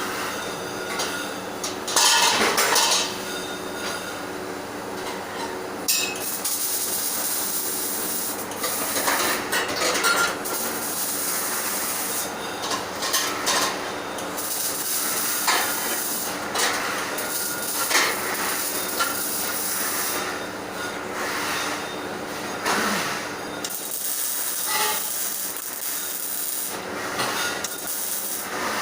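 Metal fabrication work: a steady hiss with repeated short metallic knocks scattered through it.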